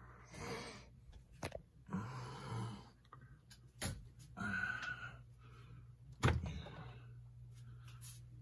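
Hands working a pinball machine's coin door and test button: a few sharp clicks and thunks, the loudest about six seconds in, with rustling handling noise between them. A steady low hum sets in about seven seconds in.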